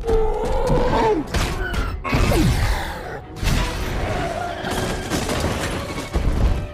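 Action-movie fight soundtrack: heavy thuds and crashes one after another, with a cry that slides down in pitch about a second in, mixed with film score.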